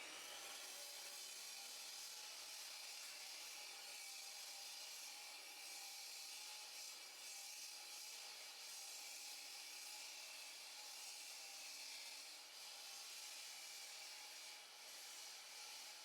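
Power saw cutting into a concrete slab: a steady high whine over a gritty grinding hiss, with the blade at full speed.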